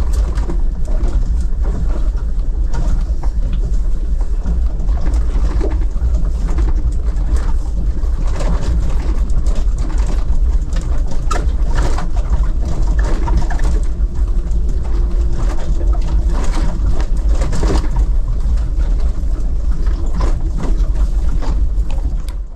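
Steady low rumble of a car driving, heard from inside the cabin: engine and road noise with faint knocks and rattles.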